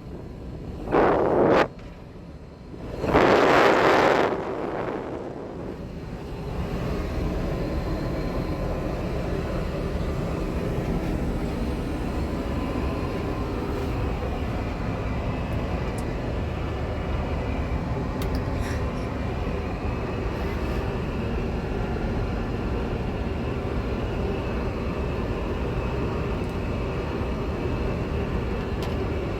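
Steady airliner cabin noise from an Airbus A380, an even rush with a low hum. It follows two short, loud whooshes in the first few seconds.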